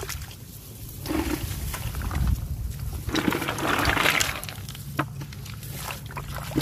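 Water splashing and sloshing as hands scoop through shallow floodwater and mud for snails, in two longer swells about a second in and around three to four seconds in, with a sharp click about five seconds in. A steady low rumble runs underneath.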